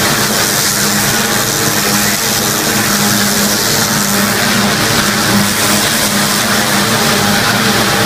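500-bar high-pressure washer jet blasting mud off a tank's road wheels and tracks: a loud, steady hiss of spray over a steady machine drone.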